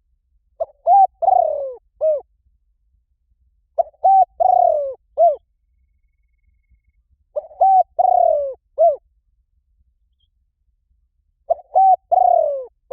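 Spotted dove cooing: four phrases about three and a half seconds apart, each two or three short coos, a longer falling coo, then a short closing coo.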